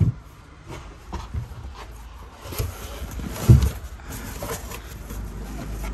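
Handling knocks and thumps as a portable tyre compressor is pushed into a car's storage compartment and the cover is pressed shut over it, with a sharp knock at the start and a heavier thump about three and a half seconds in.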